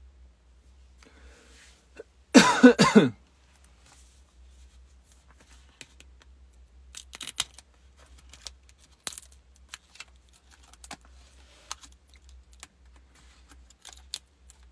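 A man clears his throat once, briefly, about two seconds in, followed by scattered faint taps and clicks.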